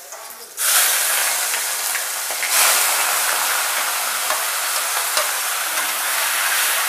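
Salt-and-turmeric-coated prawns going into hot mustard oil in a wok: a loud sizzle starts suddenly just under a second in and holds steady, surging again about two and a half seconds in as more prawns go in, with a few light clicks of the spatula.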